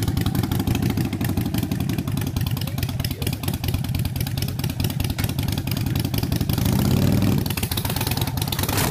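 V-twin cruiser motorcycle engine running at idle with a rapid, lumpy beat, revved up briefly about seven seconds in.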